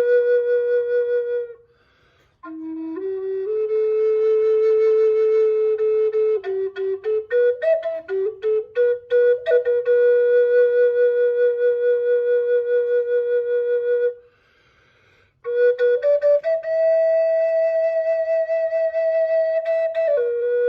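Solo flute playing a slow melody of long held notes, with sliding pitch and quick ornamented notes about seven to ten seconds in. The melody stops briefly twice, near 2 s and near 15 s.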